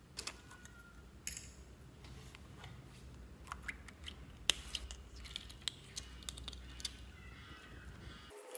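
Fingers handling and squeezing gel-filled plastic squishy toys stuck in slime: irregular sharp clicks and light sticky crackles.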